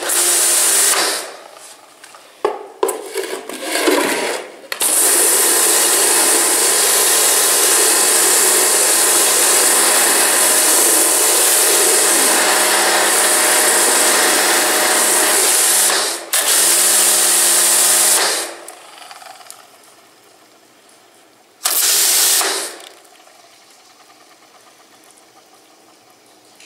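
Kärcher K2 electric pressure washer running in bursts as the trigger is pulled and released: a steady motor hum under the hiss of water jetting through a rotary surface-cleaner attachment. There are a few short bursts at first, then a long run of about eleven seconds, and two shorter runs near the end.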